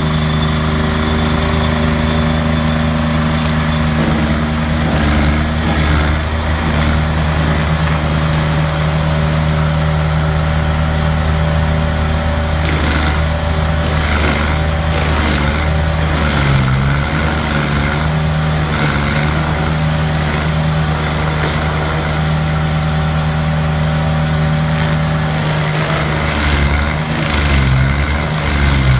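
Stump grinder's petrol engine running hard while its cutter wheel grinds into a tree stump, the engine note sagging and recovering under load now and then, most around the middle and near the end, with scattered knocks.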